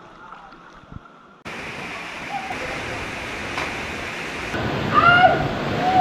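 Steady rush of a waterfall pouring into a canyon pool, cutting in suddenly about a second and a half in after a quieter stretch, with a voice calling out near the end.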